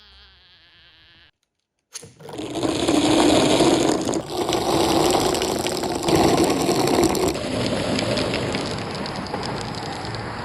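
Marbles rolling and rattling down a marble run track, a loud dense clatter of many small clicks, starting about two seconds in after a faint short hum and a moment of silence. The sound changes abruptly a couple of times as it moves to different track sections.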